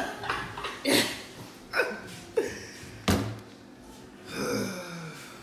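A few sharp knocks and thumps, about four in the first three seconds, the loudest a little after three seconds in, as wooden dining chairs are bumped and shifted. A short sound with a falling pitch follows near the end.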